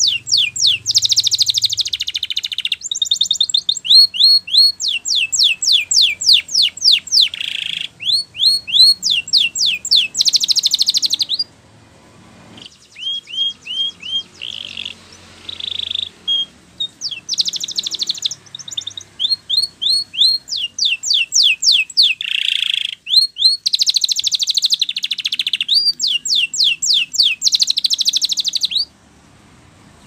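Domestic canary singing: fast runs of repeated, downward-sweeping high notes alternating with buzzy rolls, in long phrases. The song breaks off briefly about a third of the way in, then resumes and stops shortly before the end.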